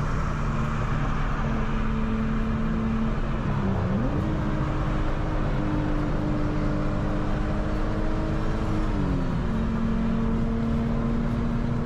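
Car engine running steadily at road speed under road noise. Its drone rises in pitch about four seconds in, holds, then falls back about nine seconds in.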